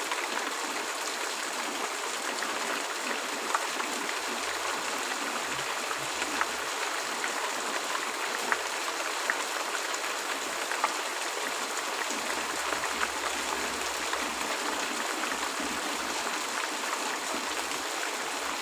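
Steady rain falling, with scattered sharper drop ticks every few seconds; no thunder.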